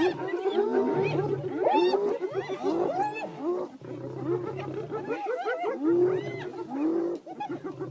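A group of wild animals calling over one another: many short, overlapping cries that rise and fall in pitch, without a break.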